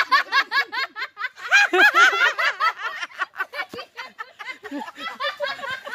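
Hearty laughter: a long run of high-pitched "ha-ha" pulses, about six a second, loudest about two seconds in.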